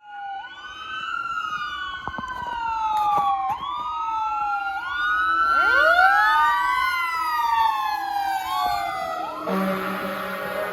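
Fire engine siren wailing in repeated sweeps, each rising quickly and falling slowly, with a second siren tone climbing from low about halfway through. A fire engine air horn blasts about a second before the end.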